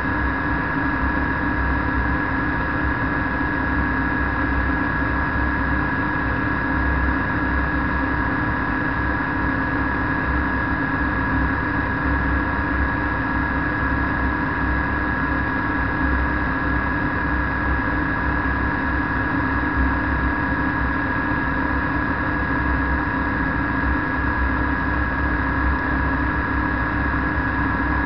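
Flex-wing microlight trike in cruising flight: a steady drone from the engine and propeller, with wind rushing and buffeting over the microphone.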